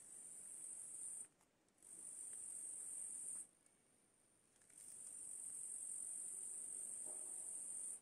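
A cricket-type insect's high-pitched, steady trill, heard in three long bouts with short pauses between them.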